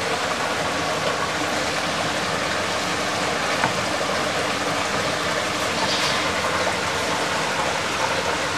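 Steady rushing of flowing water, an even hiss that doesn't change.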